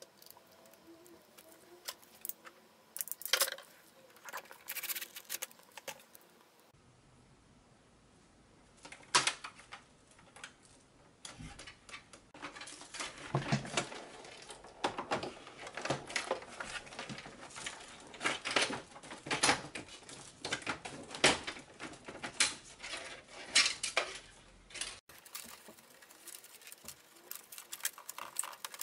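Plastic parts of a Brother MFC-J425W inkjet printer being handled and fitted back together by hand: irregular clicks, taps and rattles, sparse at first and denser in the second half.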